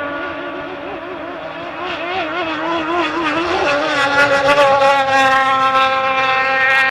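Racing jet boat's engine running at high revs as the boat speeds past across the water. Its pitch wobbles up and down for a couple of seconds, then holds high and steady.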